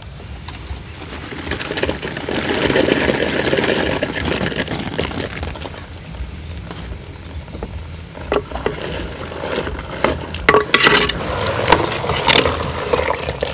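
Scotch bonnet chillies tipped from a woven basket into a clay pot of boiling water: a rush of splashing and tumbling lasting a few seconds, followed later by scattered clicks and knocks.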